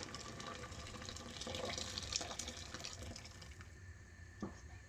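Water being poured into a pressure cooker pot of fried onion, tomato paste and beans: a faint running and splashing that tails off about three and a half seconds in, with a small knock near the end.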